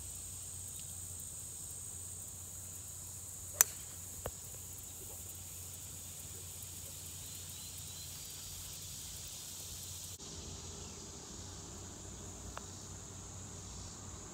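A golf club sharply striking a ball off the tee, one loud crack, followed a moment later by a fainter click, over a steady high drone of insects.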